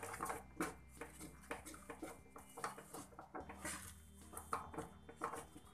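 Wooden spatula stirring and scraping thick cooked oats around a metal kadai, with irregular light knocks of the spatula against the pan.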